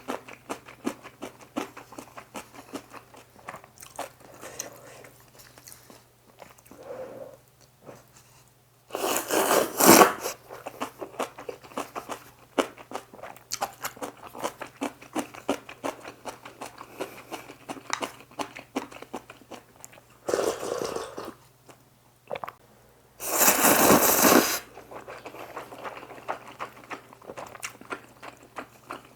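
Close-miked eating of spicy squid instant noodles with rice: wet chewing with many small mouth clicks, broken three times by loud slurps, each about a second long.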